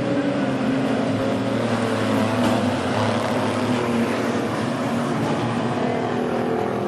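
Several stock car engines running together on the track, a steady drone of the pack with no single car standing out.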